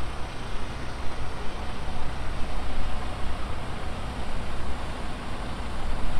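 Steady low rumble of idling semi trucks over a constant hiss of road noise, with no distinct events.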